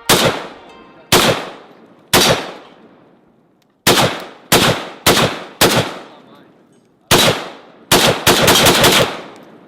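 Gunshots: three single shots about a second apart, four more at roughly half-second spacing, one more, then a rapid string of shots lasting about a second near the end, each with a ringing echo trailing off.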